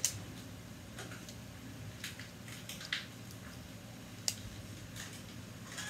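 Small plastic building blocks clicking and tapping as they are handled and pressed together, a few separate sharp clicks, the loudest at the start and about four seconds in, over a steady low hum.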